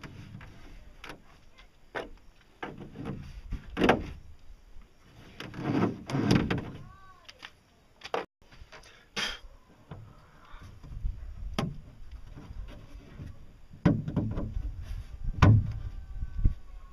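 Hands working plastic pipe parts against a fiberglass boat hull and its pipe gunwale: irregular knocks, clicks and scrapes, with a cluster of louder knocks near the end.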